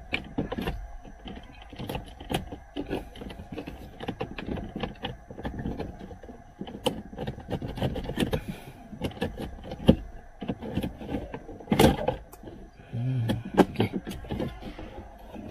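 Irregular plastic clicks, taps and scrapes as a plastic trim pry tool works a Toyota Wish's dashboard air-con vent and its clips loose.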